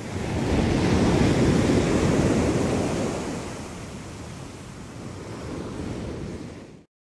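Ocean surf: a rushing wash of noise swells up about half a second in, then slowly recedes, and cuts off abruptly near the end.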